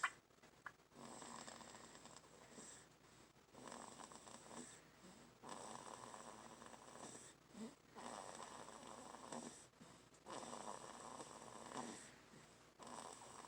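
Quiet snoring in sleep: a run of about six slow, noisy breaths, each lasting one to two seconds with short pauses between.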